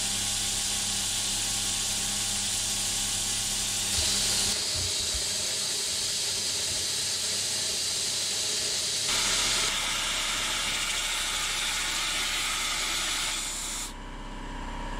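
A Hafco Metalmaster horizontal metal-cutting bandsaw cuts through a steel tube over a low motor hum, with the steady hiss of its compressed-air mist coolant sprayer. The hiss cuts off about a second before the end as the air valve is shut.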